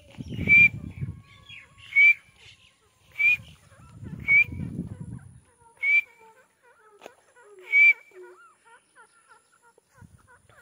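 A teetar (francolin) calling: six short, loud, high whistled notes, each rising slightly, spaced about 1.3 to 2 seconds apart, with softer chirps after them near the end. A low rumbling noise runs under some of the notes.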